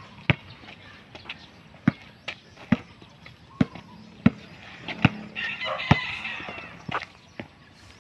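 A basketball being dribbled on a concrete road: a steady run of sharp bounces, about one every second. A rooster crows once in the background about five and a half seconds in.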